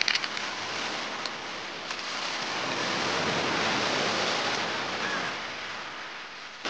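Sea surf washing onto a pebble beach, a steady rush that swells to its loudest in the middle and then fades, with a few light clicks near the start.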